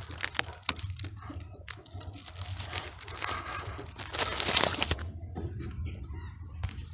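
Dry straw nesting material rustling and crackling in irregular bursts as a hen shifts about in the nest, with a louder burst a little past halfway.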